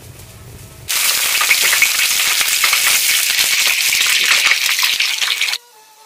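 Eggs frying in hot oil in a wok: a loud, dense sizzle that starts abruptly about a second in and cuts off shortly before the end, after a low rumble at the start.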